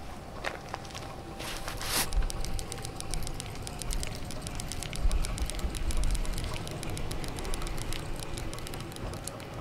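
Bicycle freewheel ticking rapidly and evenly as the wheel coasts, over a low rolling rumble. It starts about two seconds in, after a short rushing noise.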